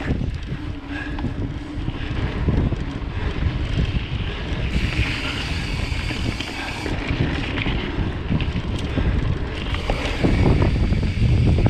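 Mountain bike rolling fast along a dirt singletrack: wind buffeting the camera's microphone over the rumble of the tyres on the trail, with short knocks and rattles from the bike over bumps. It gets louder near the end.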